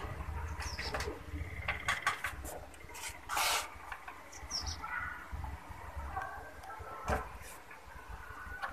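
Scattered light clicks and a brief rustle of hands handling the LED TV's plastic backlight reflector sheet and its support pins, over a low steady hum. Several short high chirps, falling in pitch, sound in the background.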